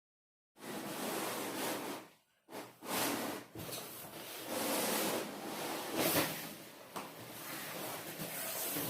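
Irregular rubbing and scraping handling noise that starts about half a second in, after dead silence, and comes in uneven stretches with a brief break about two seconds in.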